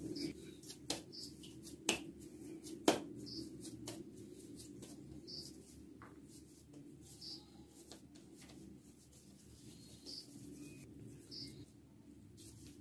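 Hands pinching off and rolling soft maize-flour dough into balls: faint soft pats and squeezes, with a few sharp clicks in the first three seconds, over a low steady hum.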